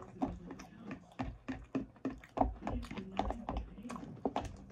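Eating sounds: salad being chewed and crunched, with irregular wet clicks and crackles several times a second, while fingers pick through a plastic salad bowl.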